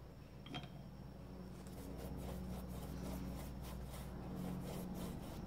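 Paintbrush strokes scrubbing across a stretched canvas, a quick run of short scratchy strokes that starts about a second and a half in.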